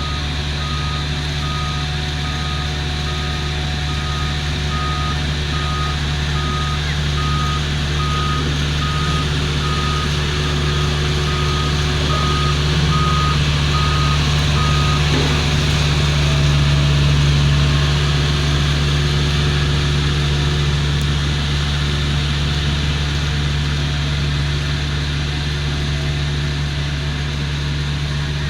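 Volvo road roller's diesel engine running steadily while its reversing alarm beeps about once a second, showing the roller is backing up; the beeping stops about halfway through and the engine keeps running.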